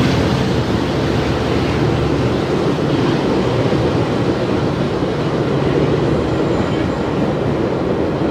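GO Transit commuter train running on the tracks: a steady rumble of wheels and rail noise with no horn.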